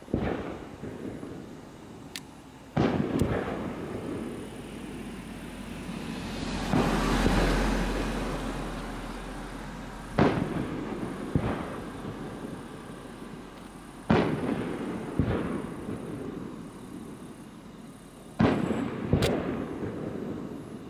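Aerial fireworks bursting: sharp booms at irregular intervals, some in close pairs. A longer rolling rumble with crackle swells up and fades a few seconds in.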